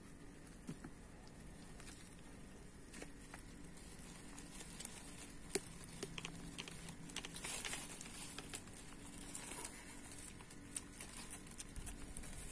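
Plastic wet-food pouch crinkling in a hand, with scattered small clicks of a kitten licking and lapping food from it; one sharper click about five and a half seconds in.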